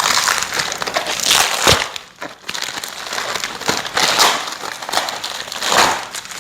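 Packaging wrap being pulled off a boxed gaming-chair part and handled, in irregular noisy bursts.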